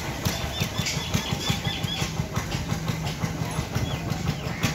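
A small engine running steadily close by, with a low, even pulse. A few short high chirps come through about one and a half to two seconds in.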